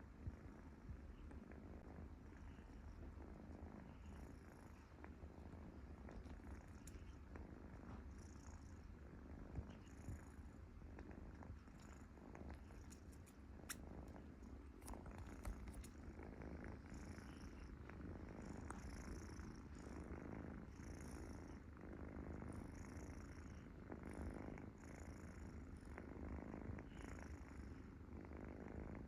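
Cat purring: a quiet, steady low rumble, with a few faint clicks over it.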